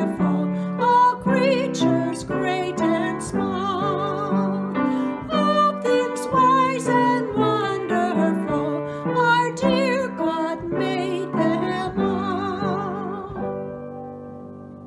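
A woman singing a slow song with her own piano accompaniment, her voice held with vibrato over piano chords; the music ends near the end on a last chord that fades away.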